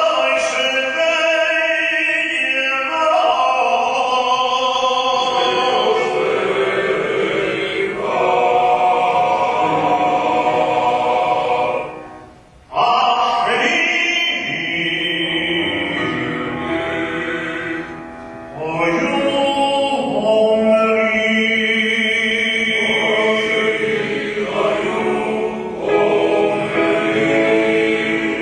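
Male cantor singing a Hebrew liturgical piece in the cantorial style, in long sung phrases, with a short break about twelve seconds in.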